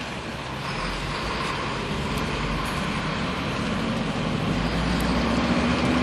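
Road traffic noise, a steady rush of passing vehicles that grows steadily louder.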